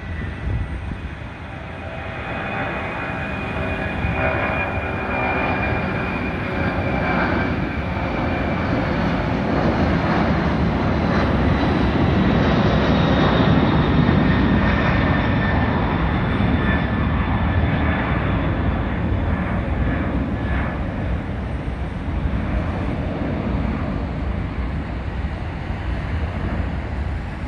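A 1984 Boeing 767-200 freighter's twin jet engines at takeoff power as it climbs out past overhead: a deep rumble that builds over the first dozen seconds and then slowly eases off, with high whining tones that slide gradually lower in pitch as it passes.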